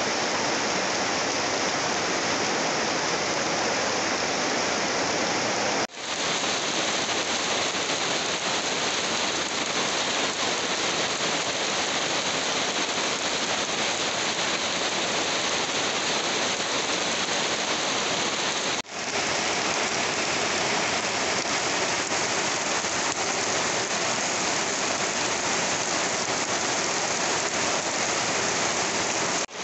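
Heavy rain drumming on a corrugated tin roof, a dense steady hiss with water running off the eaves. The rain is broken twice by a brief dropout.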